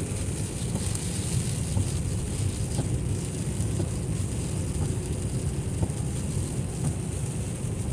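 Steady road and tyre noise inside a moving car at highway speed: a low rumble with a faint high hiss over it.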